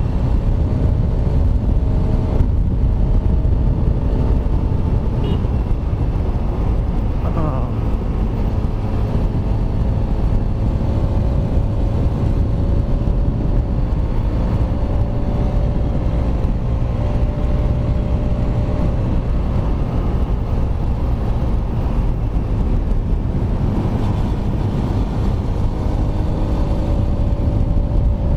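Kawasaki Rouser RS200's single-cylinder engine, its exhaust running without the silencer canister, cruising at a steady speed under a heavy low rumble of wind noise. A brief higher rising-and-falling tone comes through about seven seconds in.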